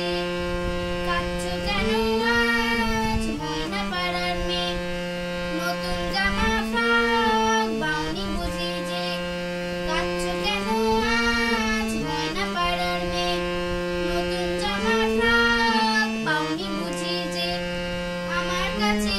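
A boy singing a Bengali song, accompanying himself on a harmonium whose reed notes are held steady beneath his voice. The sung phrases rise and fall in a pattern that repeats about every four seconds.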